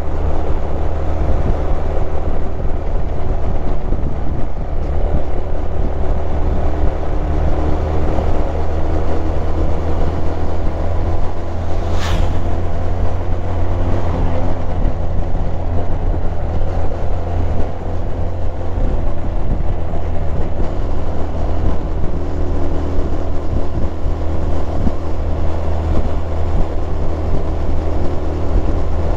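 Honda Super Cub 110's air-cooled single-cylinder four-stroke engine and exhaust running steadily as the bike cruises along the road, heard from the rider's seat.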